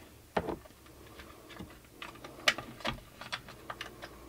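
Irregular light clicks and taps of a plastic antenna ceiling plate being handled and fitted into place against the ceiling. The clearest clicks come about half a second in and near two and a half seconds.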